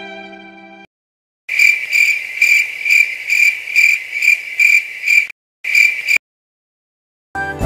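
Edited-in cricket-chirping sound effect: a steady high chirp pulsing about three times a second, with one more short chirp after a brief break, cut off suddenly. It is the familiar 'awkward silence' gag. Background music fades out at the start and new music comes in at the very end.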